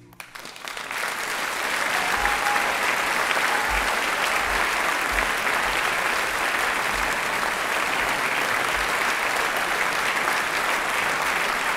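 Audience applauding at the end of a performance: a few scattered claps swell within a second or two into steady applause, with a few low thuds beneath.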